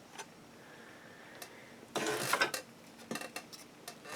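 Clear styrene model-kit parts being handled: a brief plastic rattle about two seconds in, a few light clicks a second later, and another rattle at the end.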